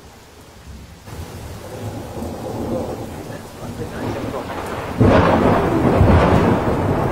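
Thunder rolling and growing louder from about a second in, then a sudden loud thunderclap about five seconds in that keeps rumbling.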